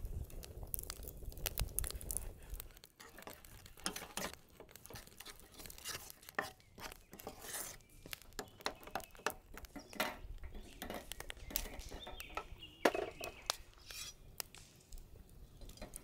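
Cookware and utensils clinking and knocking against each other in irregular taps, with a short metallic ring about three-quarters of the way through.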